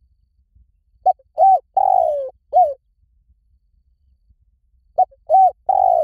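Spotted dove cooing: a four-note phrase of two short coos, a longer falling coo and a short final coo, given about a second in and starting again near the end.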